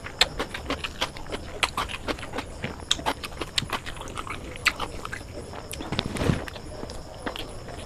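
Close-miked eating sounds: fingers mixing chicken biryani on the plate and a stream of wet smacking and clicking from mouth and hands, with a louder bite and chew about six seconds in as a handful goes into the mouth.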